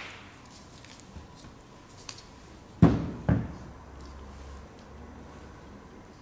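Two dull knocks about half a second apart near the middle as the metal laser cutting head is handled and set against the workbench, with a few faint clicks of parts and tools before.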